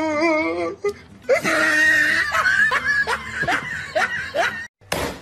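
A person laughing hard: a wavering laugh at first, then a long run of quick, high-pitched laughter that breaks off near the end.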